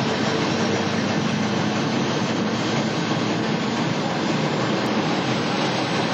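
FSE diesel railcar running steadily along the line: an even, unbroken noise of engine and wheels on the rails.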